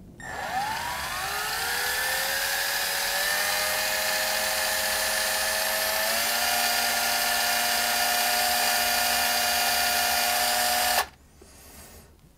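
Electric drill motor spinning the wires for an alien coil wrap: it winds up in pitch over the first couple of seconds, steps up slightly in speed a few seconds later, runs steadily, and cuts off suddenly about a second before the end.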